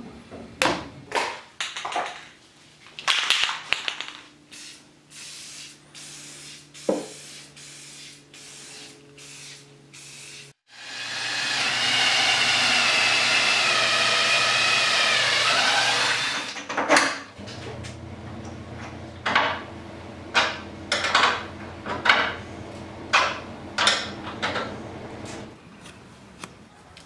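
Ryobi cordless drill driving a screw into a wooden brace, whirring steadily for about six seconds near the middle. Before and after it come scattered knocks and clicks of tools and parts being handled, and near the end a run of sharp knocks about one a second.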